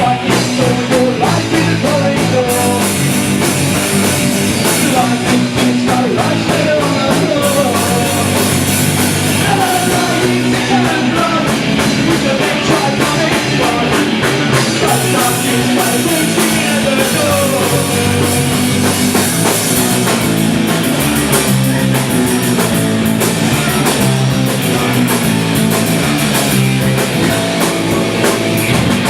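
A live rock band playing steadily and loudly, with a drum kit driving the beat under the melody lines.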